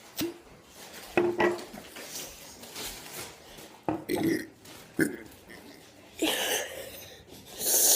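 A person burping several times, with short low-pitched burps a little over a second in and again around four seconds, from drinking soda for a burping challenge. Noisier, hissing sounds follow near the end.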